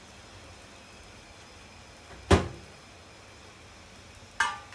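Two knocks in kitchenware, the first sharp and the loudest about two and a half seconds in. Near the end, a stainless steel plate is set down and rings briefly with a few clear tones.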